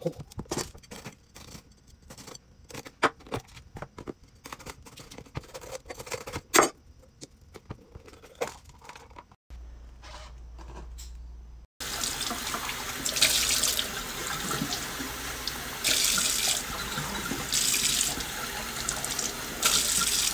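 A knife cutting bell peppers on a wooden cutting board, with scattered sharp knocks. After a short low hum, a kitchen tap runs into a stainless steel sink from about halfway in, splashing louder at moments as a green pepper is rinsed under the stream.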